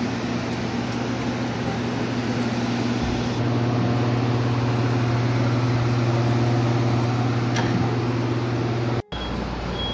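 Air movers (centrifugal carpet-drying blowers) running steadily to dry out a flooded floor: a loud whir with a low hum that grows louder about a third of the way in. The sound cuts out for an instant near the end.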